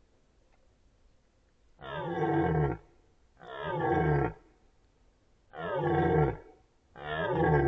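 Red deer stag roaring in the rut: three roars about a second long each, spaced a second or two apart, and a fourth beginning near the end.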